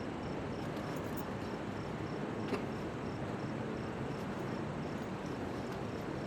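Steady outdoor background noise with a faint, high chirp repeating at an even pace, and a single small click about two and a half seconds in.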